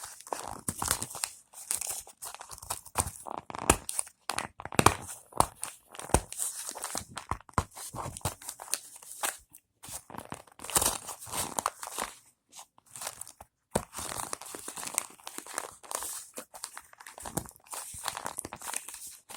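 Phone packaging being torn open and crumpled by hand: taped cardboard and plastic ripping and crinkling in irregular bursts, with short pauses.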